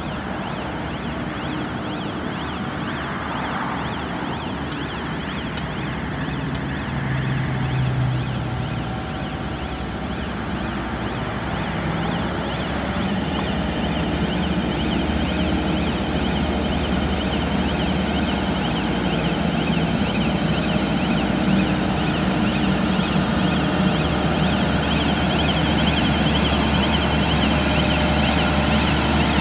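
Diesel engine of a Cometto heavy girder transporter running steadily and growing louder toward the end, with a fast-warbling warning alarm sounding over it.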